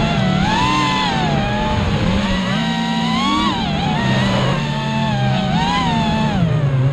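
Brushless motors and propellers of a 5-inch FPV racing quadcopter, recorded by its onboard camera, whining and swinging up and down in pitch with the throttle again and again.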